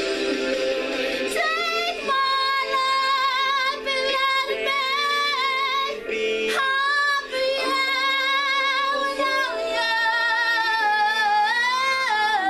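Music: a woman singing a slow melody over steady backing, her long held notes wavering with vibrato.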